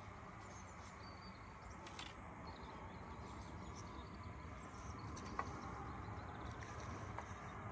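Faint outdoor background noise with a low steady hum and a few small clicks, the sharpest about five seconds in.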